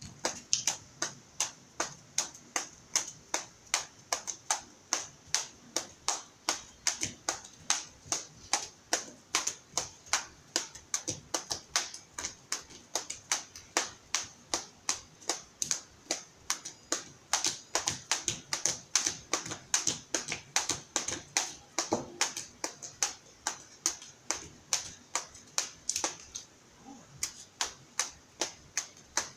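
Two long skipping ropes turned double-dutch style, slapping the paved ground in a quick, even rhythm of sharp smacks, about four a second, with a brief pause near the end.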